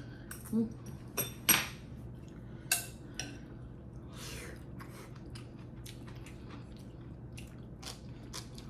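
Eating utensils clinking against bowls a few times, the loudest ringing clink about a second and a half in, followed by small, soft eating clicks.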